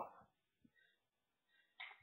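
Near silence: quiet room tone after a spoken word trails off, with one brief faint noise near the end.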